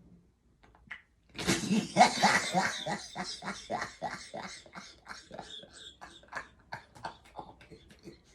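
A woman bursting into loud laughter about a second and a half in: a long run of quick bursts, a few each second, that trails off gradually.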